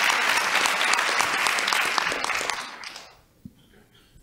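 Audience applauding; the clapping fades out about three seconds in.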